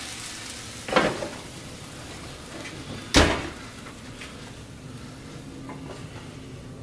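Metal sheet pan of roasted mushrooms taken off an oven rack and set on a gas stove's grates: a clank about a second in, then a louder metal clank about three seconds in, over a steady hiss of the hot pan sizzling.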